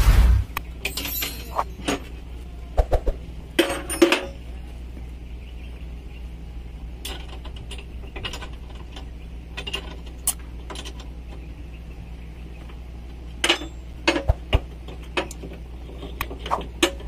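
Scattered metallic clinks and knocks, like tools and parts being handled, over a steady low hum.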